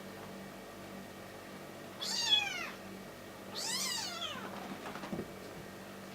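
Kitten giving two high, squeaky meows, each arching down in pitch, the second longer and starting about a second and a half after the first.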